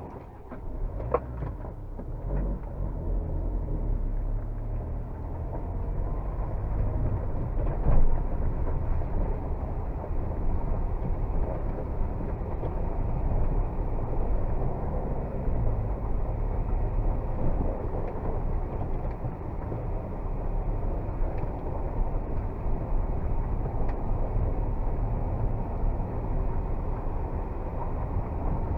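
Kia Carens II diesel minivan on the move: a steady low rumble of engine and road noise, with one thump about eight seconds in.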